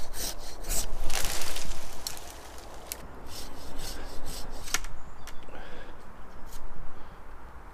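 Hand pruning saw cutting through a branch in rapid back-and-forth rasping strokes, loudest for the first two seconds and going on more softly after.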